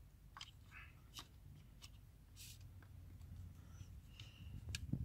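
Faint clicks and short rustles of a camera lens and its caps being handled over a padded camera bag, with a few sharper clicks near the end, over a low steady hum.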